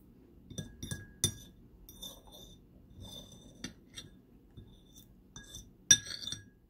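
Metal fork clinking and scraping on a ceramic plate, a string of sharp clinks that ring briefly. The loudest clink comes near the end.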